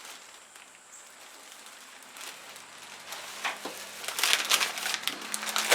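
Crinkling and crackling from something being handled, in a dense run of small clicks that starts about halfway through after a quiet stretch.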